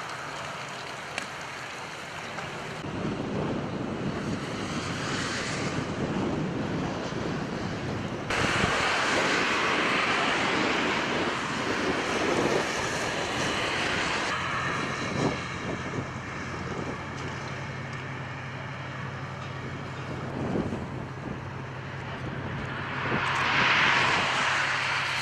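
Rescue boat under way at sea: wind buffeting the microphone and rushing water, with a steady low engine drone in the later part. The sound changes abruptly several times.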